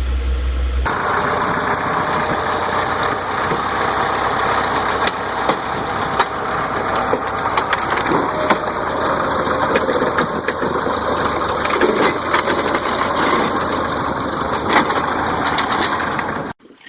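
An engine running steadily, with scattered sharp knocks and clicks over it. It starts after an abrupt change about a second in and cuts off suddenly near the end.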